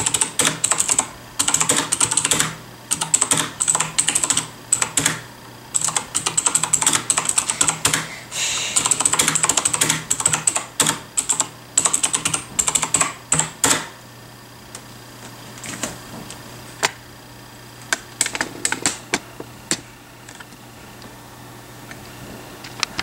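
Typing on a Logitech G710 mechanical keyboard with clicky Cherry MX Blue switches whose keycaps are fitted with blue rubber O-rings: each key still clicks, but the O-rings damp the clack of the keycap bottoming out. Quick continuous typing for the first half, then scattered single keystrokes.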